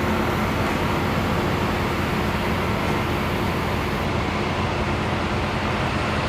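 A steady engine running with a constant low hum and an even noise, with no distinct knocks or changes.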